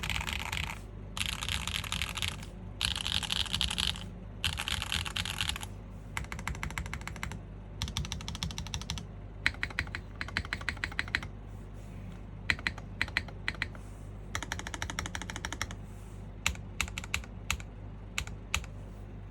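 Typing on an IRON165 R2 gasket-mounted mechanical keyboard with an aluminium plate, factory-lubed SWK Neon switches and KKB Vibrato keycaps. For the first half it goes in fast runs of keystrokes; in the second half it turns to slower, separate, sharper key presses.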